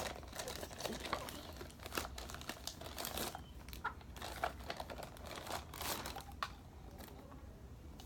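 Toy packaging being handled and unwrapped, with irregular crinkling and crackling that thins out near the end.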